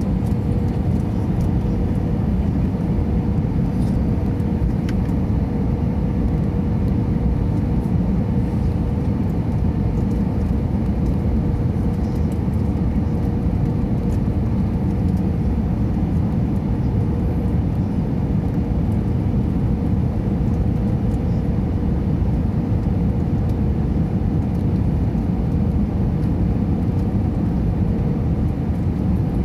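Airliner cabin noise in flight: the steady rushing of engines and airflow, with a faint steady hum running through it.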